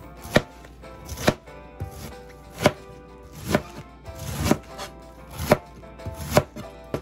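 Kitchen knife chopping a head of cabbage on a cutting board: about seven sharp chops, roughly one a second.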